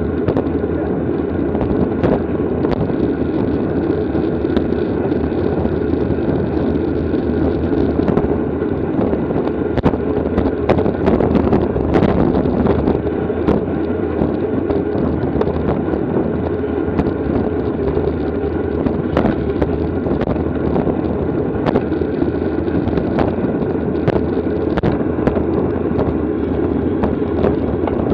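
Wind rushing over the microphone of a bicycle-mounted camera at racing speed, a steady roar with frequent small clicks and knocks over it.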